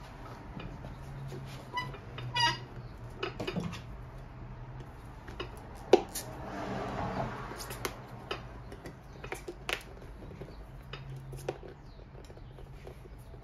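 Metal nippers gripping and prying at the heel of a leather work boot, with scattered sharp clicks, a short squeak about two seconds in and one loud snap about six seconds in.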